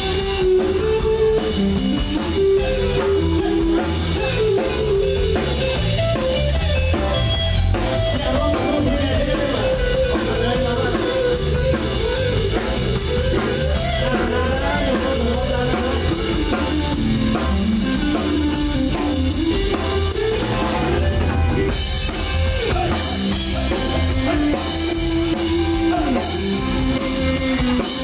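Upbeat Khmer dance music from a band: a steady drum-kit beat with guitar and a melody line on top, playing without a break.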